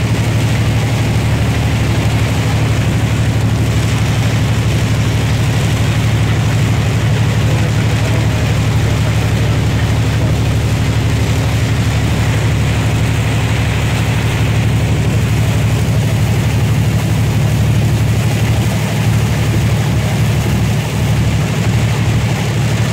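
Heavy truck engine running steadily at highway speed, heard from inside the cab as a loud, constant low drone, with an even hiss of rain and tyres on the wet road over it.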